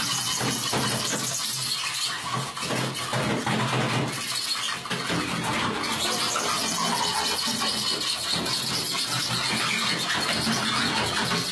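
Live experimental noise performance: a continuous dense, harsh noise with a strong high hiss, steady in loudness apart from two brief dips a few seconds in.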